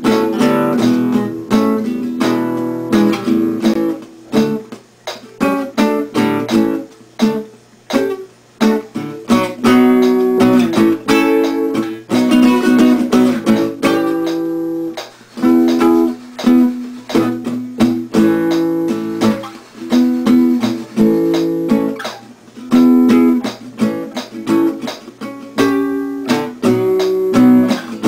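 Small-bodied acoustic guitar played solo, chords strummed in a steady rhythm with a few brief quieter gaps.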